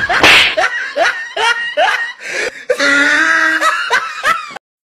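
A short, sharp smack about a quarter second in, then a person laughing hard in repeated bursts. The sound cuts off just before the end.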